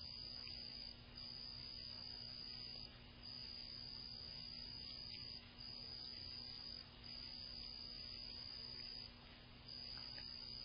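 Cricket trilling on one high, steady pitch, in long trills of a second or two broken by short pauses, over a faint steady low hum.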